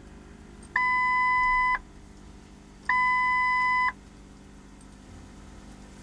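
Two long electronic beeps of one steady pitch, each about a second long and a little over a second apart, over a faint steady hum.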